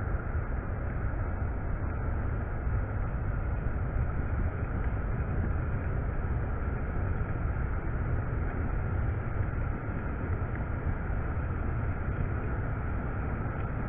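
Ocean surf washing up and back over a sandy beach, a steady rush of water with wind rumbling on the microphone.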